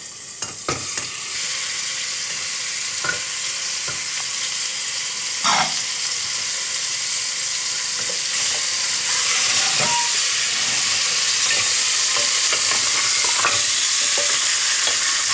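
Raw lamb pieces sizzling in hot oil in a stainless steel pressure cooker while being stirred with a wooden spatula, the frying hiss growing steadily louder as the meat starts to sear. A few short knocks of meat and spatula against the pot in the first seconds.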